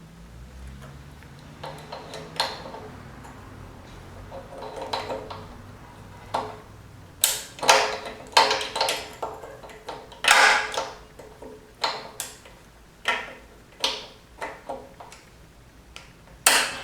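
Locking pliers (a vise grip) clicking and knocking against a tight spark plug as it is worked loose on a Briggs & Stratton lawnmower engine. A few faint scrapes come first, then a dozen or so sharp, irregular metal clicks, loudest in the second half.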